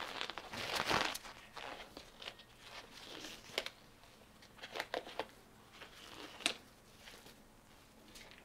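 Thin nitrile glove being pulled onto a hand: a burst of rustling and stretching about a second in, then several short sharp snaps and clicks of the thin rubber as the fingers are worked in and flexed.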